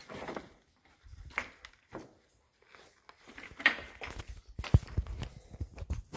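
Camera handling noise against rock: irregular scrapes, rustles and knocks as the camera is pushed into a narrow gap in the mine wall. It ends in a cluster of heavier dull thumps over the last second and a half.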